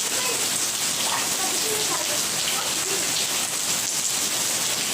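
Heavy rain falling steadily, a dense even hiss of rain hitting the ground, with faint children's voices now and then in the background.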